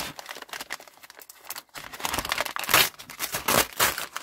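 Brown kraft-paper mailer being torn open by hand, the paper crinkling and ripping in irregular bursts, louder in the second half.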